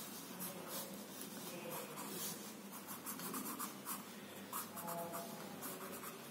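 Coloured pencil scratching across sketchbook paper in many quick, short shading strokes.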